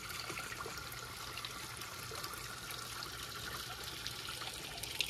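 Water trickling steadily in a garden pond water feature, with one light click near the end.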